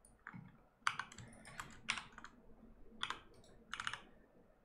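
Computer keyboard keys pressed now and then: a handful of separate clicks spread over the few seconds, as hotkeys are struck while modelling in Blender.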